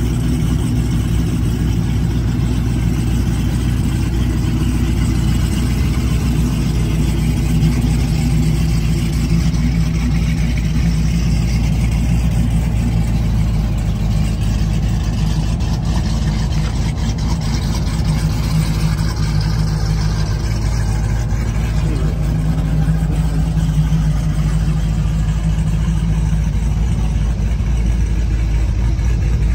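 A vehicle engine idling steadily, a low even hum with no revving.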